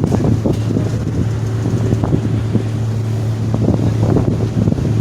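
Staten Island Ferry's engines running with a steady low hum, with wind rumbling on the microphone.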